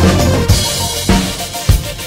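Background music with a steady drum beat, kick and snare hitting about every 0.6 seconds under sustained synth notes.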